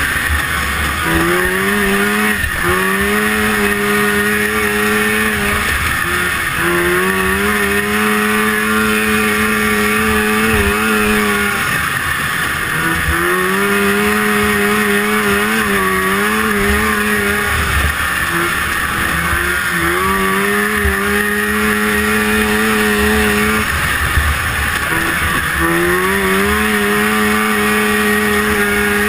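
A 1974 Rupp Nitro 340 racing snowmobile's free-air two-stroke engine, heard from the rider's seat, running hard at a steady high pitch. About every five seconds the engine note drops away briefly and climbs back up, over a steady rushing hiss.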